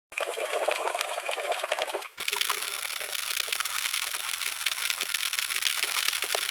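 Water spilling and splashing, a hissing pour full of small drips and splatters, in two takes: the first starts after a moment of silence and breaks off suddenly about two seconds in, and the second follows at once and keeps going.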